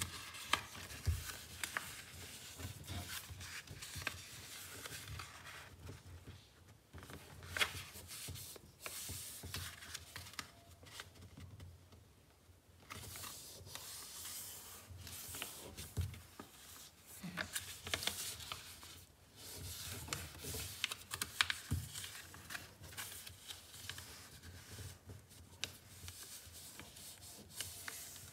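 A sheet of A5 paper being folded by hand: the paper slides and rustles while fingers press and smooth it along its folds, with a few sharper crackles and soft knocks. There is a brief lull about halfway through.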